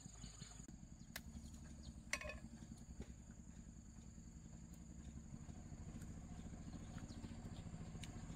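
A small engine running at low speed, faint at first and slowly getting louder, with a steady thin high-pitched tone over it and a few light clicks.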